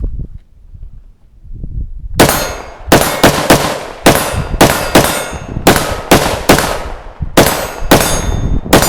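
AR-15-style rifle with a muzzle brake fired in semi-automatic, about fourteen sharp shots at roughly two a second, starting about two seconds in. Each shot has a short ringing tail.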